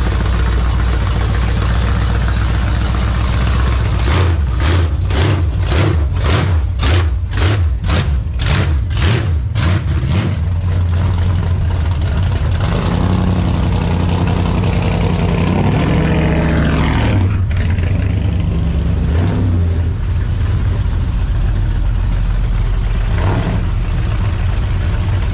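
Pickup truck engine running as the truck pulls away. A rhythmic pulsing runs from about four to ten seconds in, and the engine rises in pitch as it accelerates a few seconds later.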